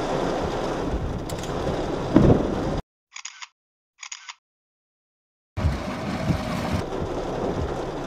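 Rain and wind noise in a thunderstorm, heard from a car, with a loud low burst about two seconds in. The sound then cuts out completely for about three seconds, broken only by two short clicks, before the storm noise returns.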